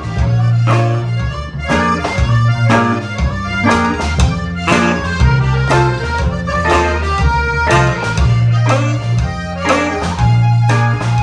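Live band playing an instrumental passage: electric guitar and accordion over a heavy bass line and a steady beat, with no singing.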